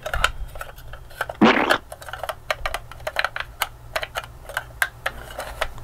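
Irregular light plastic clicks and taps from a toy mini fridge and its freezer compartment being handled while slime is put inside, with one brief louder noisy sound about a second and a half in.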